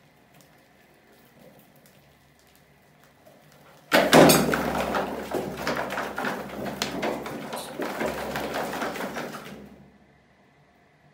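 A round wire fan guard drops down its pipe onto a plastic bucket with a sudden loud clatter about four seconds in. It then keeps rattling and scraping for about five seconds before stopping abruptly.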